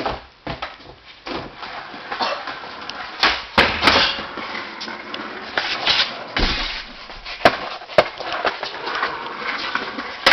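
Skateboard rolling across a hard floor, with a series of sharp clacks and slams as the board hits the floor during tricks.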